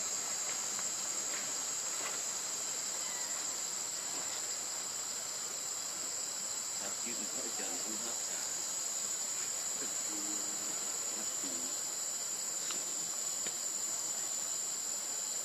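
Steady, high-pitched drone of a forest insect chorus, unbroken throughout, with a few faint short pitched sounds low in the background near the middle.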